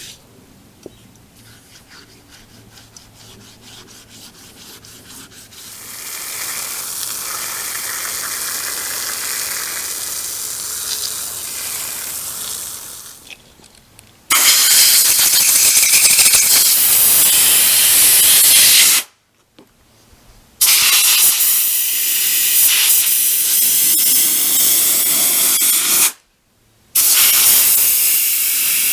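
Compressed air hissing from a blow gun in three long, loud blasts that each cut off sharply, after a quieter stretch of hiss. Faint scraping comes before it in the first few seconds.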